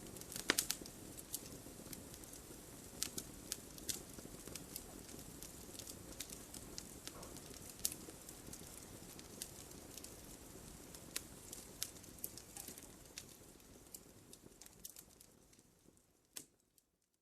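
Wood fire crackling: irregular sharp pops and snaps over a soft low hiss of burning. It fades away to silence near the end.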